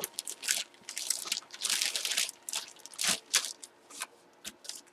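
Packaging crinkling and rustling in irregular bursts as an autographed baseball jersey is unwrapped and handled.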